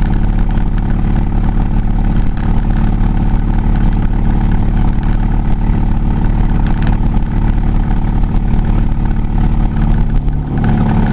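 Car engine and road noise heard from inside the cabin while driving at steady speed, a constant low drone. The engine note shifts near the end.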